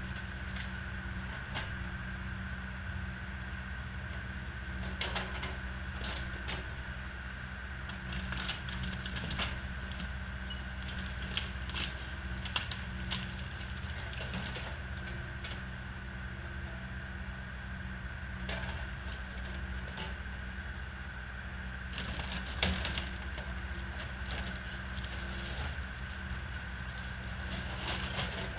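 A John Deere compact excavator runs steadily with a constant high whine while it crushes the wooden framing and siding of a mobile home. The crushing comes in scattered bursts of cracking and splintering, with the loudest crash about three-quarters of the way through.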